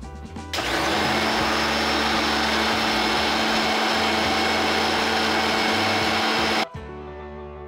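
Electric Inalsa mixer grinder running with cooked tomato-onion red chutney in its small steel jar: a steady rush with a constant hum, starting about half a second in and cutting off suddenly some six seconds later.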